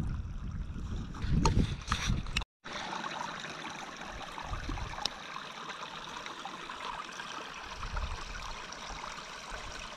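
A shallow meltwater stream trickling over loose stones, a steady hiss. In the first two seconds there is low rumbling and a few sharp clicks, then a brief break in the sound.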